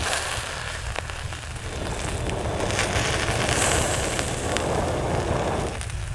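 Chicken pieces on skewers sizzling over hot charcoal: a continuous hiss with scattered small crackles and pops, over a steady low rumble.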